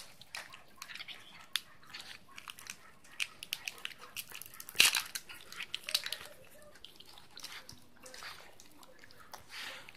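A dog licking a cat's fur: quick wet tongue-and-mouth clicks and smacks at an irregular pace, one sharper click about five seconds in.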